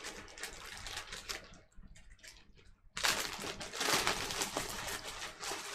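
Small clicks, taps and rustling of a disassembled Glock 23 and its slide parts being handled, with a quieter pause in the middle.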